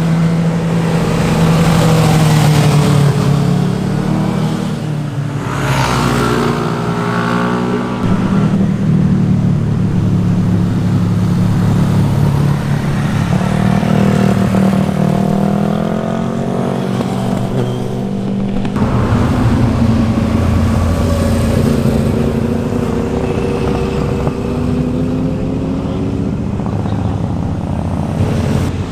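Several motorcycles, sport bikes and a cruiser among them, riding through a tight bend one after another, engines rising and falling in pitch as they slow for the corner and accelerate out of it.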